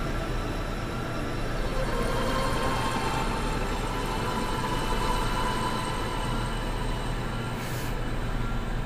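Steady low rumble of a ship's engine, with faint sustained tones running over it.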